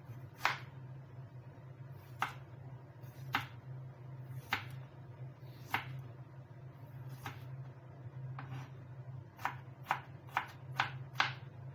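Kitchen knife slicing a tomato, each cut ending in a sharp tap on a plastic cutting board: about a dozen cuts, spaced a little over a second apart and quickening to about two a second near the end, over a steady low hum.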